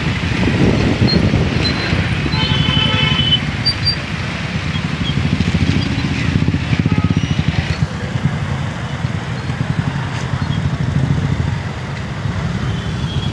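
Motorcycle engine running close by in heavy motorbike and car traffic. A vehicle horn sounds for about a second, a couple of seconds in.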